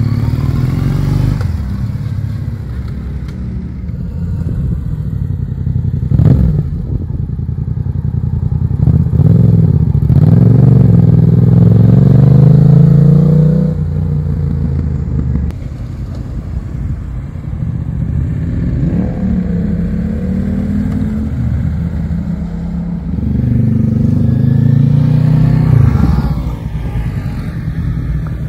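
A stream of motorcycles riding past one after another, each engine rising in pitch as the rider accelerates away and then fading. The loudest passes come about ten seconds in and again near the end.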